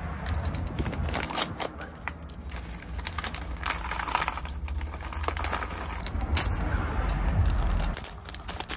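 Dry freeze-dried tofu cubes tumbling out of a crinkling plastic bag into a plastic food tray: many small, quick clicks and rattles. A low rumble of road traffic runs underneath.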